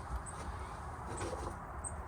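A few short, high chirps from birds over a steady low rumble of wind on the microphone.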